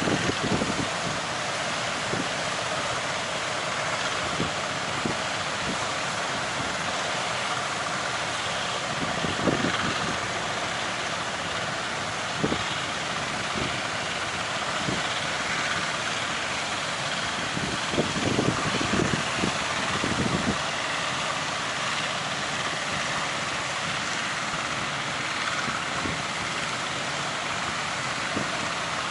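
Steady rushing surf at a sea-facing estuary mouth, with wind buffeting the microphone in irregular low thumps, heaviest about 18 to 20 seconds in.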